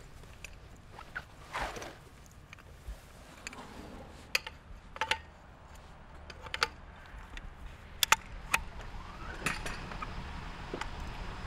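Scattered metallic clicks and clinks as a 4-inch Storz hose coupling is handled and twisted to lock onto the fire hydrant's outlet, over a low steady rumble.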